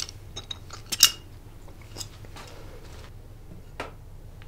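A few small clicks and clinks from a metal hip flask being handled and drunk from, the sharpest clink about a second in with a brief ring, over a low steady hum.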